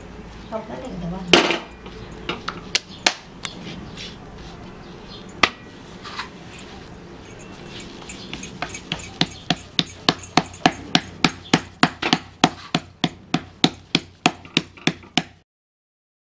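Sharp knocks as a jowar roti is pressed down with a folded cloth on a tawa over a gas stove: a few scattered knocks at first, then a steady run of about three a second, cutting off abruptly near the end.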